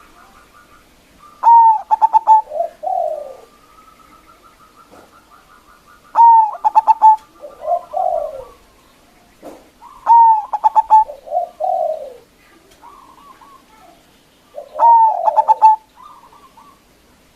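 Zebra dove (perkutut) singing: four cooing phrases about four to five seconds apart, each a quick run of short clipped notes followed by lower, drawn-out coos.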